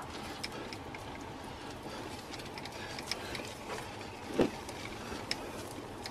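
Steady road and engine noise inside a moving patrol car, with scattered light ticks and crackles and one dull thump about four and a half seconds in.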